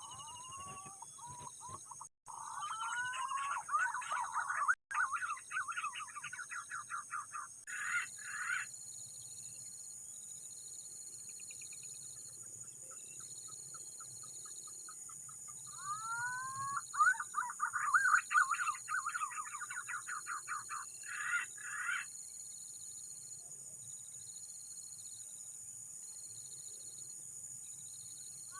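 A bird calling in two bouts, one at the start and one about 16 seconds in. Each bout opens with rising whistles and runs into a quick series of notes lasting several seconds. A steady high insect drone with a regular pulsing note runs underneath.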